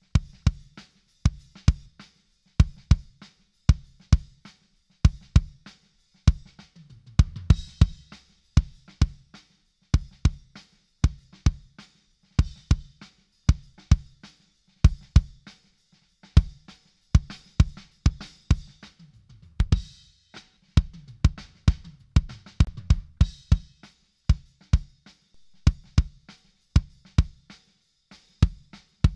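Recorded drum kit playing a steady beat of kick, snare and hi-hat, run through an ART Pro VLA II opto/tube compressor while its threshold and release are being turned.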